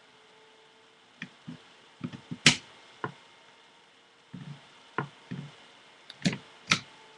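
Parts of a Tippmann X7 Phenom paintball marker clicking and knocking together as it is reassembled: an irregular run of short, sharp taps and clacks, the loudest about two and a half seconds in.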